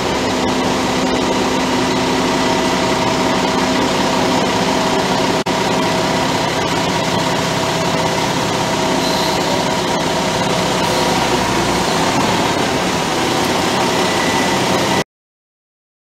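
Concrete mixer truck's diesel engine running steadily, with a few held tones in its drone. The sound cuts off abruptly about a second before the end.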